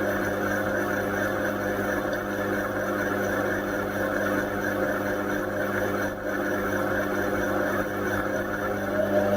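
Indesit washing machine running, a steady motor hum with the churning noise of the drum. Near the end a whine begins to rise in pitch as the drum motor speeds up.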